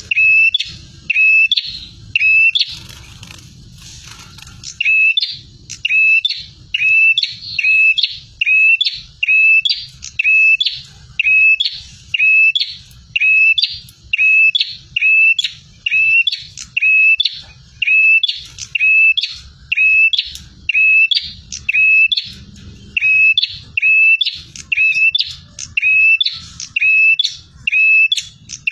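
Prenjak (prinia) singing insistently: the same sharp chirp repeated over and over, about one and a half notes a second, with one short break a few seconds in.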